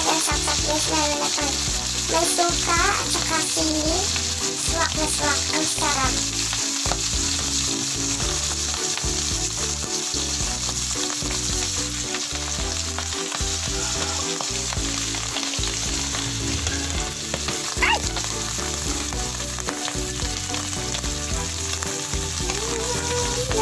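Whole dried salted fish (tuyo) frying in hot oil in a wok, a steady sizzle.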